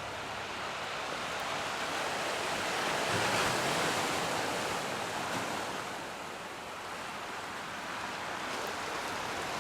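Ocean surf rushing onto the shore in a steady wash that swells to its loudest about three and a half seconds in, then eases off.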